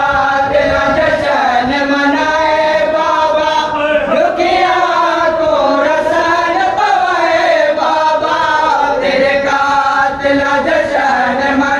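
A noha, a Shia mourning lament for Imam Sajjad, chanted by voices in long, slow melodic lines that rise and fall.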